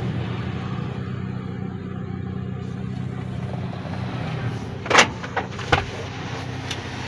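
Car engine idling, heard from inside the cabin as a steady low hum. About five seconds in, the car door's latch gives a sharp click, followed by a few lighter knocks as the door opens and she climbs in.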